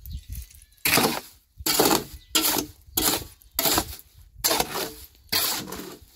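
Steel shovel scraping and scooping through wet cement mix in a metal wheelbarrow, about seven strokes in a steady rhythm.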